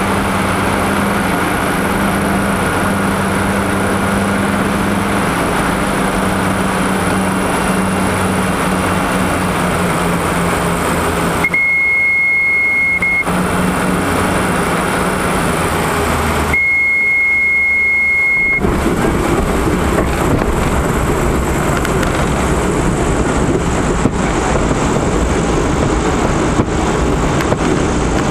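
Cabin noise of a Diamond DA42 twin landing: steady engine drone, broken twice by a steady high beep of about two seconds, during which the engine noise drops away. In the last third the sound turns to a rougher rumble with small knocks as the wheels roll along the grass runway.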